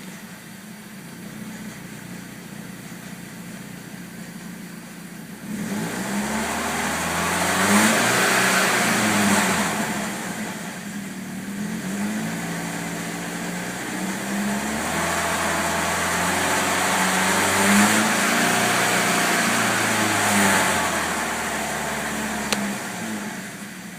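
BMW M42 1.8-litre four-cylinder engine idling, then revved up twice and allowed to fall back to idle. It has a grinding noise that stops at about 3,000 rpm and comes back strong as the revs drop. The AC belt is off, so the noise is not the AC compressor clutch bearing it was once blamed on.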